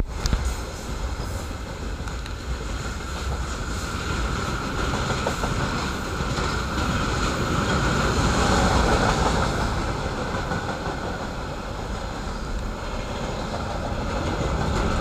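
Freight wagons rolling past at speed close by, a continuous rumble of steel wheels on rail with scattered clatter. It is loudest about eight to nine seconds in.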